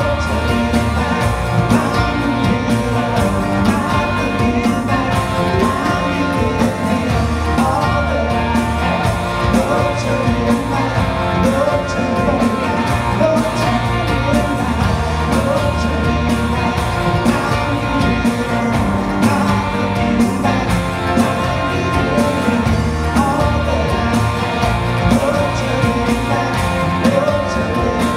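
Live worship band playing an upbeat rock-style song: two acoustic guitars, electric bass and drum kit, with a man singing.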